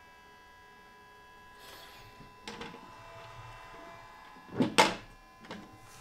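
Sovol 3D filament dryer's fan and heater running quietly, a faint steady hum with a thin high whine. A few knocks, the loudest a double thump about two-thirds of the way through.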